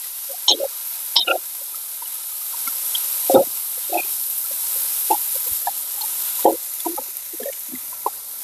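Fried rice being stir-fried in a stainless steel wok: a steady sizzle, with the metal ladle scraping and knocking against the wok at irregular moments.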